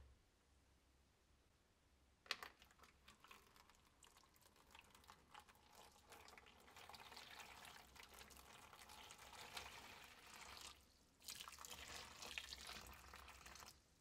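Hot water poured from a glass jug into a plastic tub over a metal plate, a steady splashing stream that breaks off briefly about eleven seconds in and then runs louder. A light knock about two seconds in, before the pouring starts.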